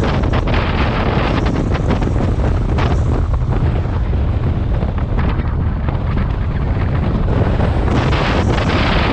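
Wind buffeting the microphone of a camera on a moving BMW motorcycle, a loud, steady rushing rumble over the engine and road noise.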